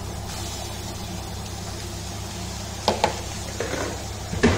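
Cooked white rice being tipped from a container into a wok, with two sharp knocks against the pan, about three seconds in and near the end, over a steady low hum.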